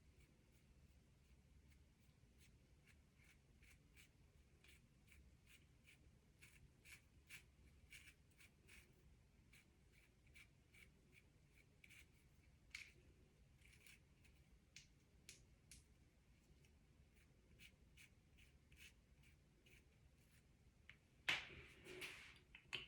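Near silence broken by faint, short scratchy strokes and ticks, with a louder rustle near the end: light hand and brush work laying baby hair along a wig's hairline.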